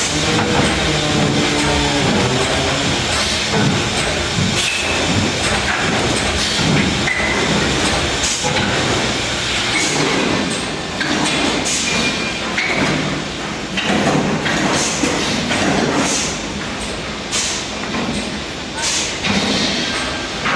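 MPCNC (Mostly Printed CNC) machine running a fast job. Its stepper motors whine in tones that jump in pitch every fraction of a second as the axes change speed and direction, over a dense mechanical clatter with many short clicks.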